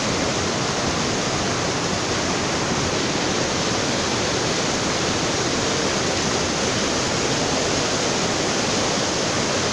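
Floodwater rushing in a steady roar.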